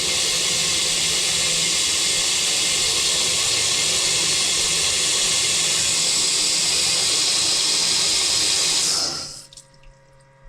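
Water running hard and steadily into a drain, sent down the freshly snaked sewer line to test that it flows. It cuts off after about nine seconds.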